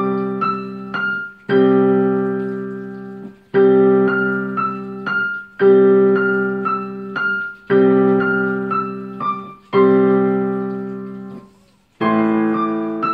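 Digital piano playing a slow, gentle piece: a low chord struck about every two seconds and left to fade, with three or four higher notes played over each. The harmony changes after a short break near the end.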